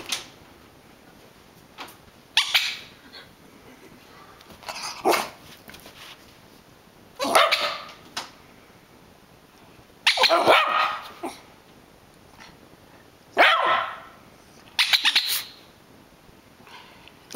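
Rat terrier barking in short bursts every two to three seconds, with a longer run of barks near the middle, worked up by a squeaker toy being squeezed.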